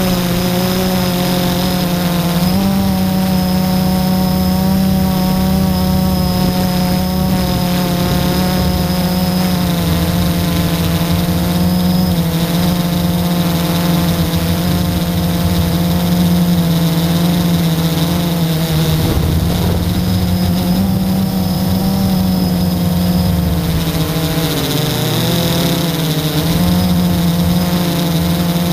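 Blade 350 QX quadcopter's electric motors and propellers whining steadily as heard from the onboard camera, the pitch drifting up and down with throttle changes.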